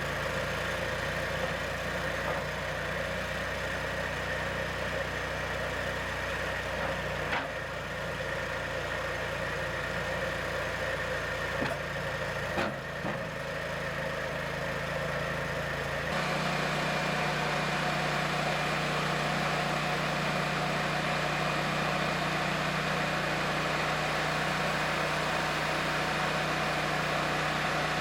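An engine idling steadily, with a couple of brief knocks, then stepping up to a faster, slightly louder run about 16 seconds in.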